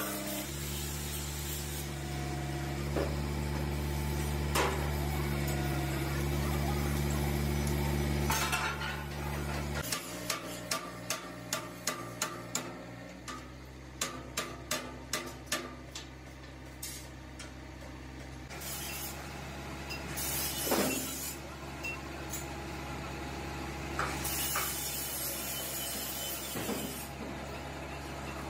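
Workshop sounds: a machine hums steadily for about ten seconds and then stops suddenly, followed by runs of quick, light metallic taps, about four a second, and a few scattered knocks.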